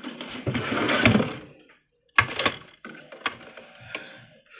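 Rustling and clicking of packaging and small plastic parts being handled, with a dense rustle in the first second and a half, then a sharp click and scattered smaller clicks.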